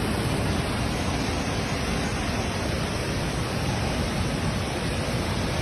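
Rushing river water in flood, a steady, even roar.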